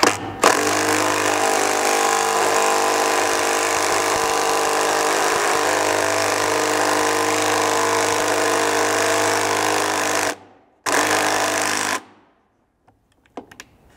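Ridgid cordless impact driver with a 9/16 socket hammering a 3/8 thread-cutting bolt home, the bolt cutting its own threads as it goes: a steady rattling run of about ten seconds, a short pause, then about one more second before it stops.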